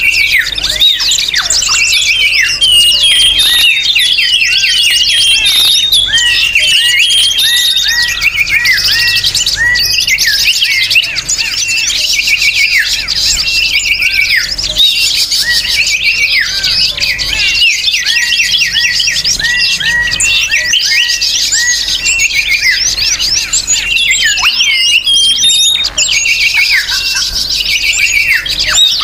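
A noisy chorus of many small songbirds chirping and twittering at once: rapid overlapping short calls and quick falling notes without a pause. This is a bird-lure (pikat) recording meant to draw wild birds in.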